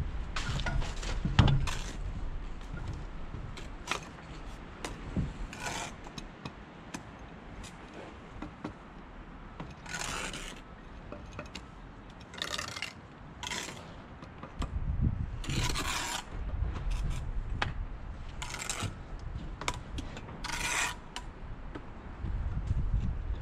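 Masonry tools scraping on stone and mortar while a stone parapet wall is laid: about six short, separate scrapes. A few sharp knocks come in the first seconds, the loudest about a second and a half in.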